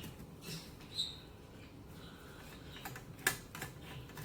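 Screwdriver turning out a screw from an Automatic Electric Type 90 telephone: a few small clicks and scrapes, with one sharper click a little over three seconds in.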